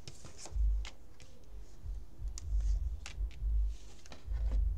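Tarot cards being handled: scattered light clicks and snaps of card stock, with dull low thumps against the table.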